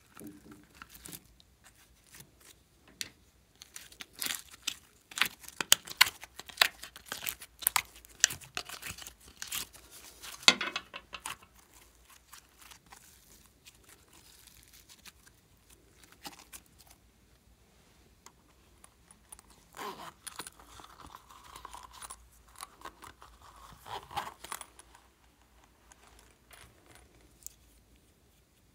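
Slime being handled: sticky crackling and popping as it is pulled from a plastic container and squeezed by hand. It is loudest from about four to eleven seconds in, with quieter squishing and plastic handling later.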